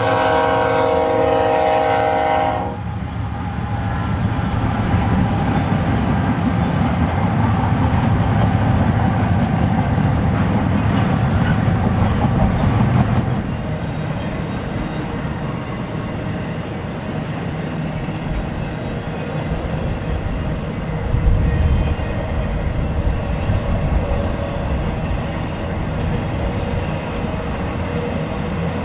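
A diesel freight locomotive's air horn sounds a chord of several notes and cuts off about two and a half seconds in, a crossing signal. The freight train then rolls past with a steady heavy rumble of engines and wheels on rail, which eases a little about halfway through.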